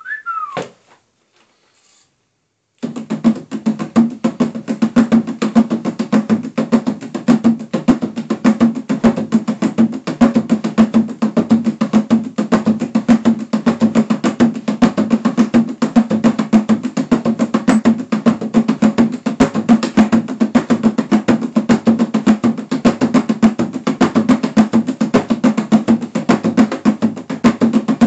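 Hand drum played with bare hands, starting about three seconds in with fast, continuous strokes and a low tone ringing under them. Right at the start there is a brief falling squeal.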